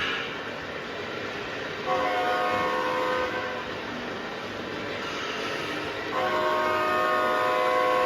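Model diesel locomotive's sound system playing a multi-chime air horn twice, a short blast about two seconds in and a longer one starting about six seconds in, over a steady diesel engine rumble.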